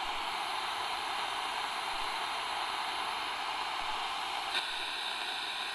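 Steady static hiss, like white noise, with no pitch or rhythm; its tone shifts slightly about four and a half seconds in.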